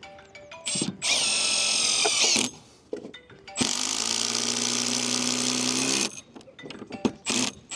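Cordless drill driving a screw through a solar-panel roof hook into the rafter under the slate: two runs of a steady motor whine, the first short and rising in pitch as it ends, the second longer, followed by a few light clicks and knocks.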